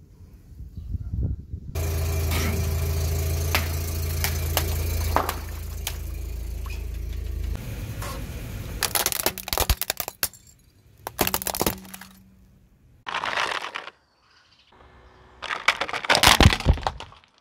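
A car rolling slowly over things in its path. First a steady low engine hum with scattered cracks, then several separate runs of sharp cracking and crunching as plastic toy cars break under the tyre.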